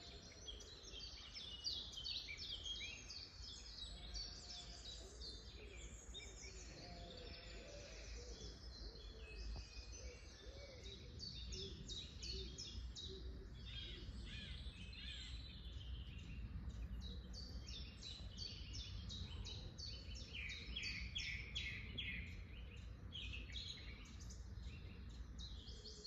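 Woodland birdsong: several small birds singing and chirping in rapid, repeated phrases, over a faint, steady low rumble.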